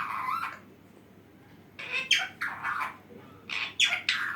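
Pet talking parrot squawking in three short bursts of rapid, harsh calls.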